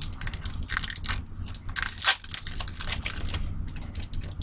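Foil trading-card pack wrapper crinkling and crackling as it is torn open and handled, with a louder crackle about two seconds in.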